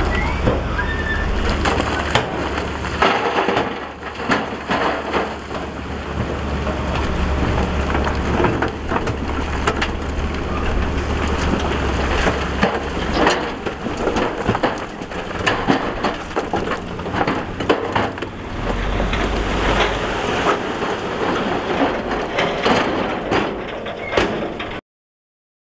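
Heavy earthmoving work on rocky fill: continual crunching and clattering of rock and soil being pushed or dumped, over a low machine rumble that fades out about halfway and returns briefly later.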